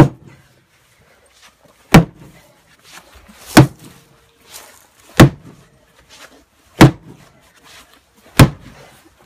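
Six heavy sledgehammer blows on a wooden timber, one about every second and a half, each a sharp thud: driving the new sill beam into place under the barn.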